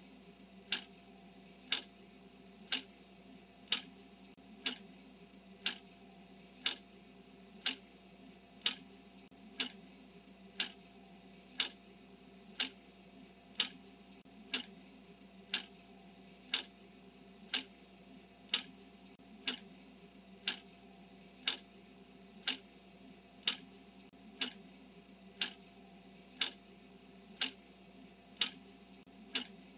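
Clock ticking steadily, one tick a second, marking the seconds of a countdown timer, over a faint steady hum.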